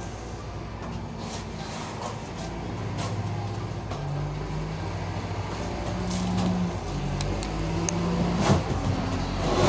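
A low engine hum whose pitch wavers up and down, with a few knocks near the end.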